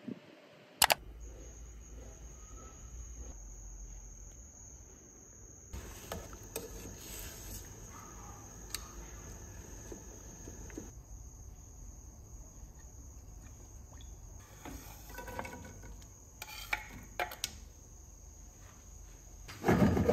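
Stovetop cooking: a pot of water boiling with spaghetti in it, and metal tongs clicking against the pot now and then. A steady high-pitched whine runs through most of it. Near the end, sliced garlic starts sizzling loudly in oil in a frying pan.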